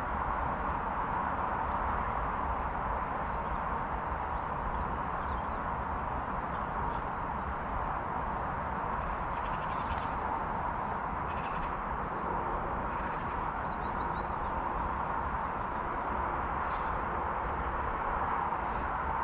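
Steady outdoor background rush at a constant level, with brief bird chirps and short trills scattered through it.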